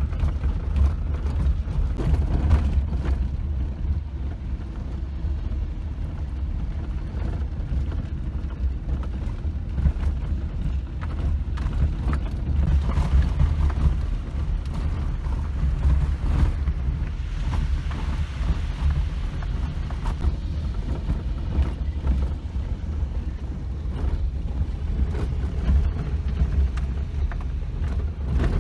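Suzuki Jimny on the move, a steady low rumble of engine and road noise with scattered creaks and knocks from the body.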